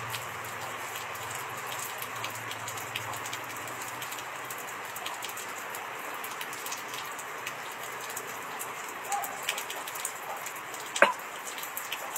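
Pomelo segments being peeled apart by hand: small crackles of membrane and pulp tearing over a steady hiss, with a few louder crackles and one sharp click near the end.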